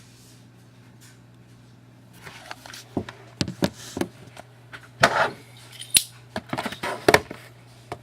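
Hands handling and opening a sealed box of trading cards: irregular clicks, scrapes and crinkles of cardboard and wrapper, starting about two seconds in, over a steady low electrical hum.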